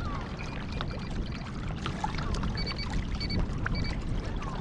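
Wind buffeting the microphone in a low, uneven rumble, with water splashing and trickling against a kayak hull and small scattered clicks.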